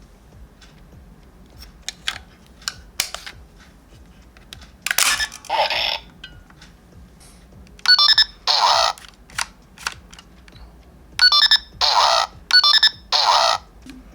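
Bandai DX Delta Phone toy being handled: plastic clicks, then keypad beeps and short electronic sound effects from its speaker, in two beep-and-effect sequences in the second half.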